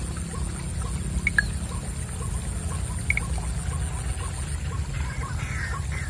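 Steady low outdoor background rumble with a thin high whine, and faint regular ticks about twice a second. Two brief high chirps come about one and three seconds in.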